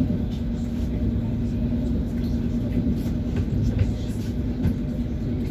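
ES1P Lastochka electric train running at speed: a steady rumble with a constant electric hum, and the light clack of its wheels over the rails.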